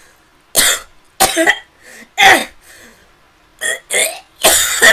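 A voice actor gagging and coughing in a string of about six short, loud bursts, a retching reaction of disgust at a bad smell.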